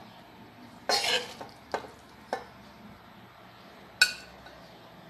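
Metal spoon clinking and scraping against a non-stick pan as stir fry is scooped out for serving: a short cluster of knocks about a second in, two single clinks after it, and a sharp ringing clink about four seconds in.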